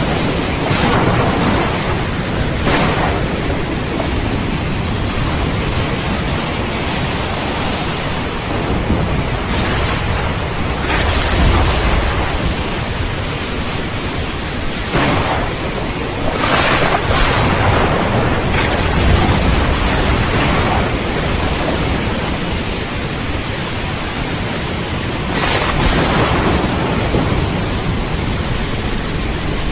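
Steady rain hiss with thunder rolling and rumbling several times through it; the deepest rumbles come about eleven seconds in and again near nineteen seconds.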